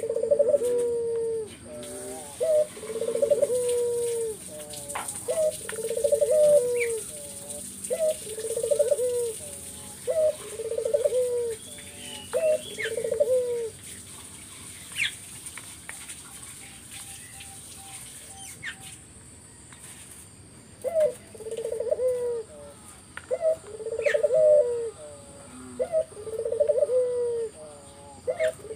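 Puter (ringneck/Barbary dove) cooing in a steady series of rolling coos, each about a second long and dropping at the end, with a pause of several seconds midway before the cooing resumes. This is the 'gacor' calling used as a lure to set other puter doves cooing.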